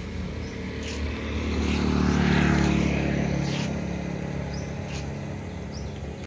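A motor vehicle passing by on the road. Its engine and tyre noise grow louder to a peak about two and a half seconds in, then fade away.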